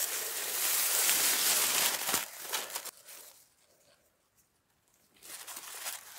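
Rustling, crinkling noise for about the first three seconds, then quiet, then a shorter second rustle near the end.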